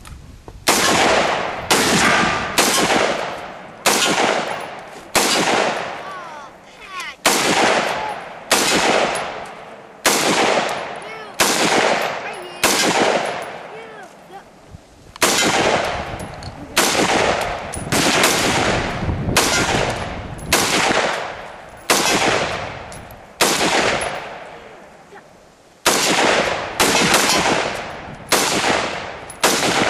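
A long string of gunshots at a range, about one a second, each with a ringing echo tail. The firing pauses briefly about halfway through and again a few seconds before the end.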